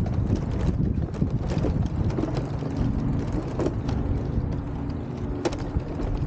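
Wind buffeting the microphone, a steady low rumble with scattered clicks.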